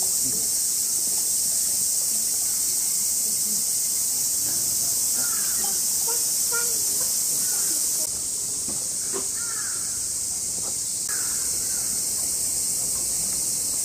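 Steady high-pitched drone of a summer cicada chorus. It dips slightly about eight seconds in and comes back up about three seconds later.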